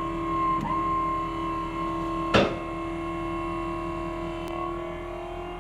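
Dump trailer's hydraulic pump motor running with a steady whine as it raises the bed. It spins up just before and again about half a second in, and its pitch steps up near the end. A single loud knock comes about two and a half seconds in.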